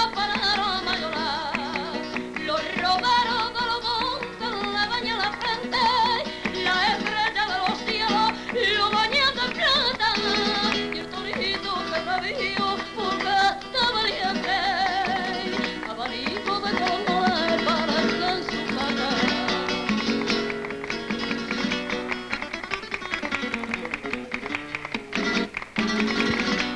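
Flamenco music: Spanish guitar chords with a wavering, ornamented singing voice over them. The music turns more percussive, with quick sharp strokes, in the last few seconds.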